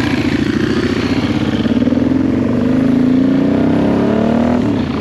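Honda Transalp 700's V-twin engine, fitted with a de-catted exhaust header, accelerating hard with the revs climbing steadily, then dipping briefly near the end.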